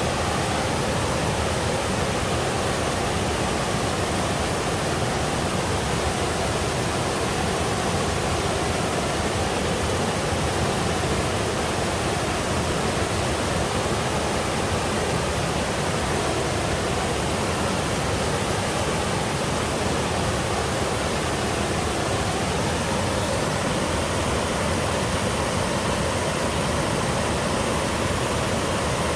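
Mountain-valley waterfall, a two-tier cascade into a pool, rushing steadily.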